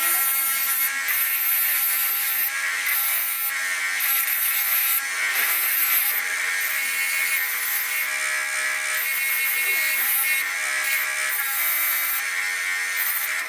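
Bench grinder running with a steady motor whine while a steel hook is pressed against its pink abrasive wheel, adding a continuous rasping grind of metal on the wheel; a few of the tones waver in pitch as the pressure changes.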